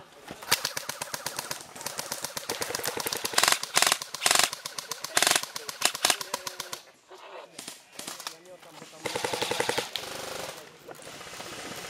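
Airsoft guns firing rapid full-auto bursts during a firefight, with a few louder strokes in the middle and a short lull about three-quarters of the way through.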